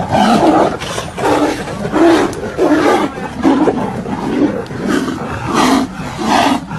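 Wild animals fighting: a rapid run of short, loud, harsh roaring calls, about one or two a second.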